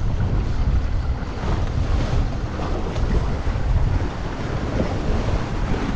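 Wind buffeting the microphone over open sea, mixed with sea water washing against a small fishing boat: a steady rushing noise, heaviest in the low rumble.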